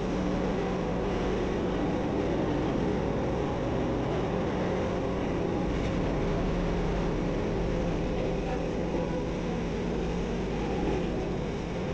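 Steady running noise inside an MRT Line 3 train car between stations: an even rumble and hiss with a low hum underneath.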